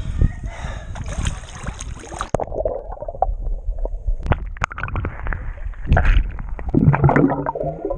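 Lake water sloshing around a camera at the surface, then about two seconds in the camera goes under and the sound turns muffled: underwater gurgling of air bubbles with scattered sharp clicks, and a muffled low hum near the end.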